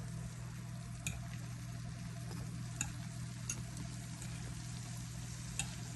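Fried dumplings frying in hot oil: a steady sizzle with a few sharp pops, over a steady low hum.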